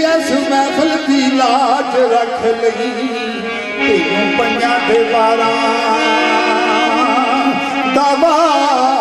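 Live South Asian folk music: a sustained melody with wavering, ornamented notes over held drone tones.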